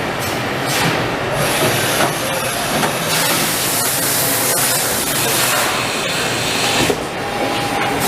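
Haas VF-2SS CNC vertical machining center running, with a steady hiss and rush like coolant spraying and scattered small clicks.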